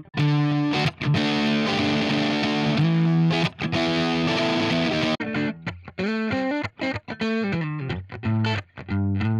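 Electric guitar played through a drive preset on an IK Multimedia TONEX MAX amp-modelling pedal: heavily distorted chords ring out, then about five seconds in the playing turns to short, choppy picked notes and riffs with brief gaps.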